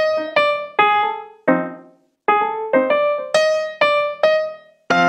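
Intro music: a solo piano playing a slow melody of single struck notes, each ringing and fading before the next, with a short pause midway.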